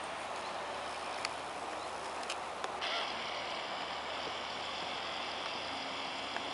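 River water running over stones, a steady rushing hiss, with a few light clicks early on. About three seconds in, a steady high-pitched buzz starts on top of it.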